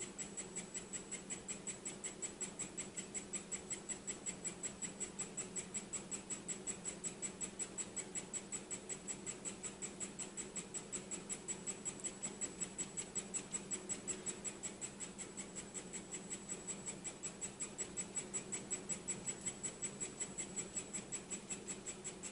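Handheld 3D printing pen's filament feed motor ticking rapidly and evenly, about five ticks a second, with a faint high whine, as it pushes plastic filament out of the hot nozzle.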